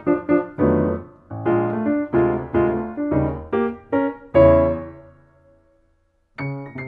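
Solo piano playing an instrumental jazz/MPB piece: a quick run of notes and chords, then a loud chord a little past four seconds in that is left to ring and fade away. After a moment of silence, a few soft notes with a high ringing tone start near the end.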